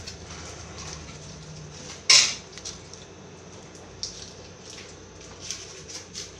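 Kitchen handling sounds as bouillon cubes are unwrapped and put into a pot of stock. There is one sharp clatter about two seconds in, then light scattered clicks and rustles of the cubes' wrappers.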